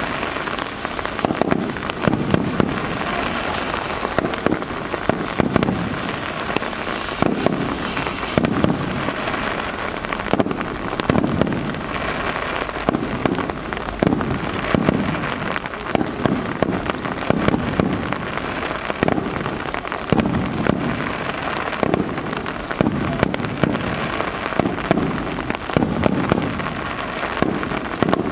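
Aerial fireworks shells bursting one after another, a deep boom every second or two, over a steady hiss of rain.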